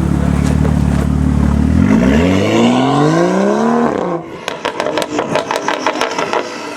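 Straight-six engine of a BMW M235i through a catless iPE exhaust: it runs steadily, then accelerates with a rising engine note for about two seconds. About four seconds in the driver lifts off and the exhaust gives a rapid string of pops and crackles.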